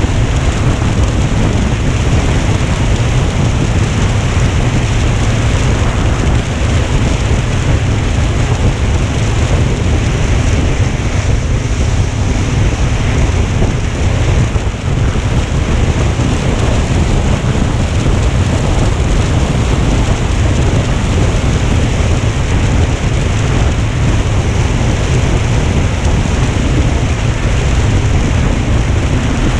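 Wind buffeting the microphone: a loud, steady rushing noise, heaviest in a deep rumble, that masks everything else.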